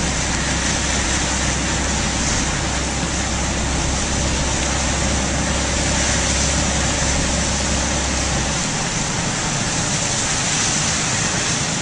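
Car engine running, heard from inside the cabin, under a steady hiss of rain and wet road. The low rumble drops away about nine seconds in.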